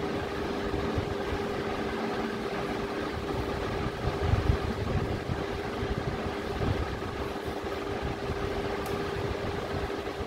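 Steady mechanical hum with a constant low tone over an uneven low rumble.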